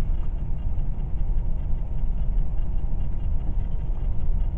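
Steady low rumble of background noise with no distinct events, strongest in the deep bass.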